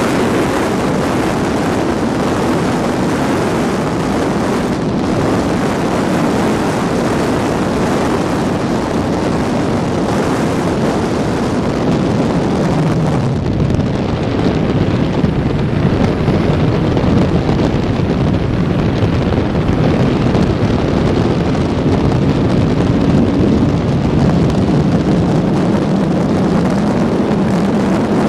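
Wind rushing over a helmet-mounted microphone on a moving 1985 Honda CB650SC Nighthawk motorcycle, with the bike's inline-four engine running underneath. The engine's pitch rises and falls in the second half.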